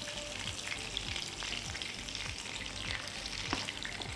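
Chicken breasts sizzling in hot oil in a grill pan, with many light clicks and scrapes of a spatula against the pan as the pieces are pushed and turned.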